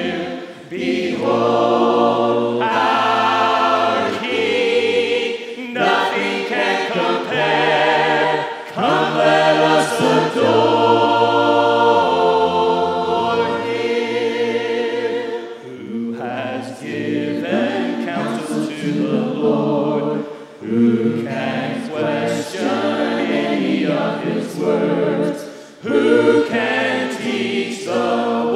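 Mixed men's and women's voices singing a hymn a cappella in harmony, with no instruments, in long phrases broken by short pauses for breath.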